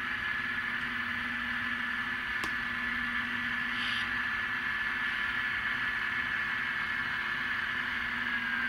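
Simulated GE GEVO diesel locomotive sound from the ESU LokSound decoders of N scale ScaleTrains ET44AC models, played through their tiny speakers: a steady engine drone with a steady high whine that dips slightly near the end. One sharp click about two and a half seconds in.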